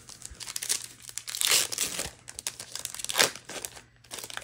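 Foil wrapper of a Magic: The Gathering booster pack crinkling as it is torn open and handled, a dense crackle with its loudest bursts about a second and a half in and again about three seconds in.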